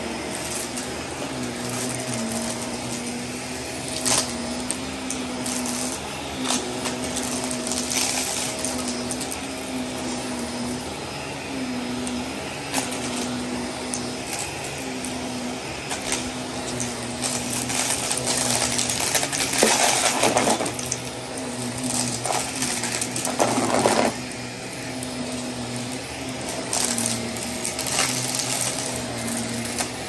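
Shark upright vacuum cleaner running on carpet. Its motor hum dips in pitch every second or two with the push-and-pull strokes, and scattered grit ticks and rattles as it is sucked up. There is a louder rush of pickup about twenty seconds in and again a few seconds later.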